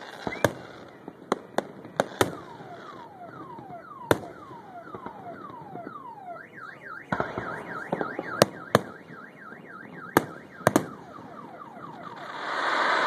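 Fireworks display: sharp bangs of shells bursting overhead, irregularly spaced. Through the middle runs a regular series of whistling tones, falling sweeps about every half second, then a fast up-and-down warble, then falling sweeps again. Near the end a dense crackling hiss swells up.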